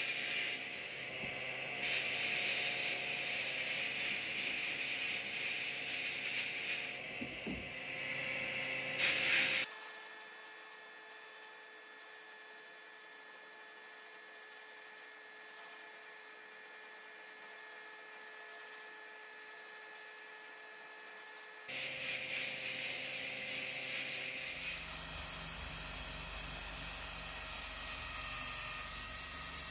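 Abrasive blasting in a blast cabinet: a steady hiss of compressed air and grit from the blast gun against an old Record No.6 G clamp, changing abruptly a few times. About 25 seconds in it gives way to a cordless DeWalt 18V right-angle drill spinning a wire wheel brush against the clamp.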